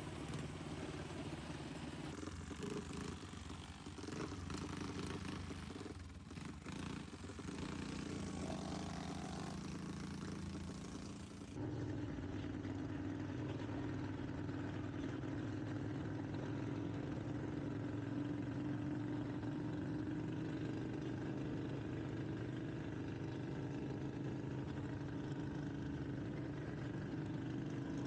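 Racing lawnmower engine running at speed. About eleven seconds in the sound changes abruptly to a steadier, slightly louder engine drone.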